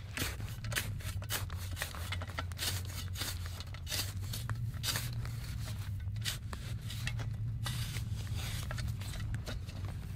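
Compact snow shovel digging and scraping into packed snow, a run of short crunching scrapes over a steady low hum.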